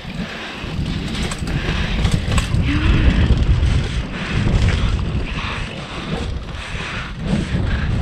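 Wind rumbling over the microphone of a camera riding on a mountain bike descending a dirt trail, with tyre noise and scattered clicks and rattles from the bike.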